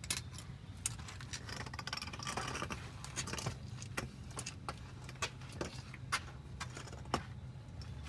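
Scattered metallic clinks, taps and jingles of hand tools and car parts being handled while a new starter motor is fitted, irregular and sharp, over a steady low hum.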